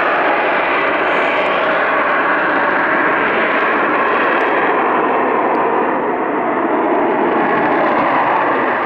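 Eurofighter Typhoon's twin jet engines at high power as the fighter climbs away after a touch-and-go, a loud, steady jet noise.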